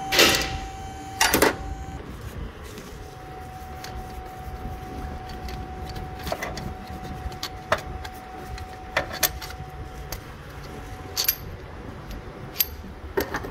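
Scattered metallic clicks and clinks of a wrench working on the alternator's 14 mm mounting bolts, with two louder knocks in the first second and a half.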